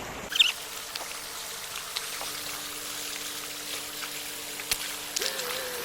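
Stream water running and trickling, with scattered small ticks and splashes and a faint steady hum that steps up in pitch near the end.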